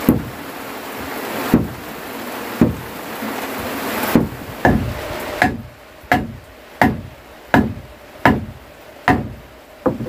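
Blows on wood: a few irregular machete chops against a steady hiss. Then, about five seconds in, a steady run of knocks on the hut's wooden plank panel, roughly one every three-quarters of a second, each with a brief ringing note.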